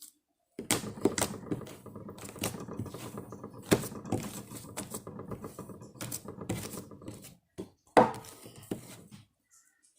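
Hands squishing and stretching slime, a rapid run of crackling clicks and pops that stops after about seven seconds, followed by one loud pop near eight seconds.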